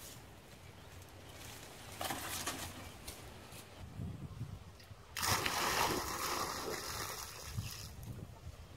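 Water splashing and sloshing, with a louder stretch of splashing from about halfway through that lasts some three seconds.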